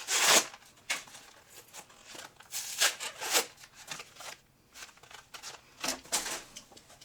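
Pokémon trading cards being handled, sliding and flicking against each other in several short swishes.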